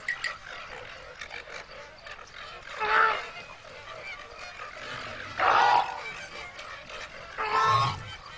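Cartoon animal vocal effects: three short animal calls, roughly two and a half seconds apart, over a steady background hiss.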